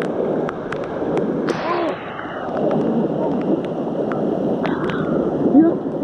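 Swollen, muddy floodwater rushing through river rapids close to the microphone, a dense steady wash with frequent sharp splashing clicks.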